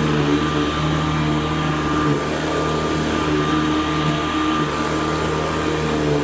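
Hoover Convertible U4003 upright vacuum cleaner running steadily on carpet, a motor hum with a thin high whine, its lower tones wavering slightly.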